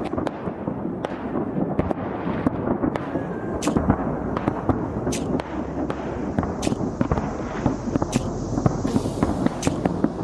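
Fireworks display: a dense, steady crackling with sharp bangs going off about once a second.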